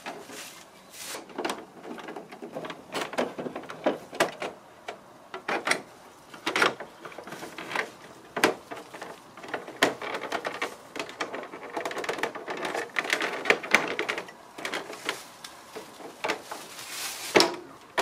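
Plastic casing panels of a wall-mounted air conditioner being fitted and snapped back into place by hand during reassembly: irregular clicks and knocks of hard plastic.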